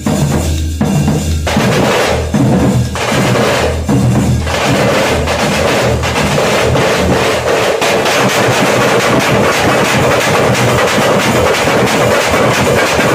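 A troupe of stick-played drums, hand-held frame drums with a large barrel drum, playing a loud, fast festival rhythm. There are a few short breaks in the first four seconds, then a dense, unbroken stream of strokes.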